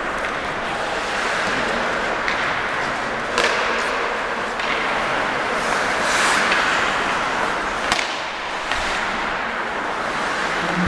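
Ice hockey play on a rink: skates scraping across the ice under a steady rink hiss, with a few sharp cracks of sticks on the puck or boards, the loudest about three and a half and eight seconds in.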